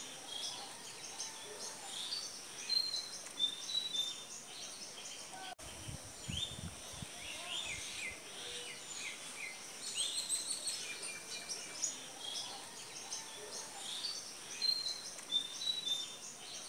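Birds chirping: a busy chorus of short, high chirps and quick falling whistles, with a repeated short high whistled phrase heard twice. A few low rumbles about six to seven seconds in.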